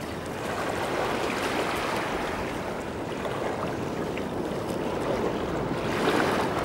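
Small sea waves washing and lapping over the sand at the water's edge, a steady rush of water.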